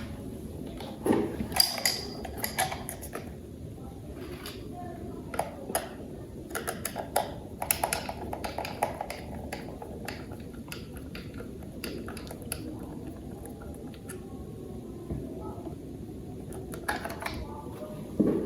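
Plastic toy parts being handled and fitted together, giving scattered clicks, taps and light knocks, in bunches with short pauses between.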